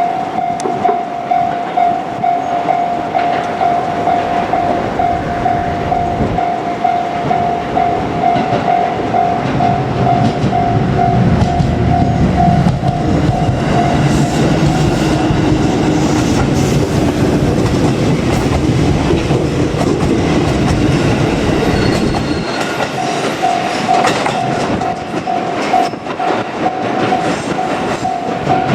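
Japanese level-crossing warning bell ringing in a steady pulsing ding-ding while a JR Kyushu 787 series express train runs past, wheels rumbling on the rails. The train's pass is loudest in the middle and covers the bell for several seconds, and the bell is heard again near the end.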